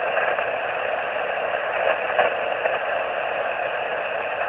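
Steady hiss of shortwave static from the speaker of a Yaesu FT-817ND receiving upper sideband on 14.220 MHz in the 20-metre amateur band, between transmissions.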